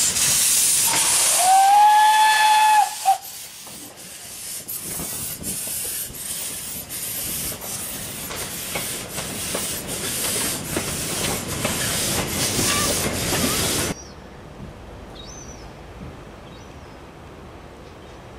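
Narrow-gauge W.G. Bagnall 0-6-2T steam tank engine hissing loudly with steam from its cylinders, then giving a short whistle of about a second and a half. It then pulls away with a steady chuffing of about two exhaust beats a second as its carriages roll past, until the sound cuts off sharply near the end to a quiet background with a few faint chirps.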